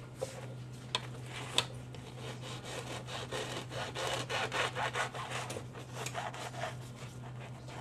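A bread knife sawing back and forth through the crisp crust of a freshly baked loaf, making a quick run of crunchy scraping strokes. There are a few sharp clicks in the first two seconds.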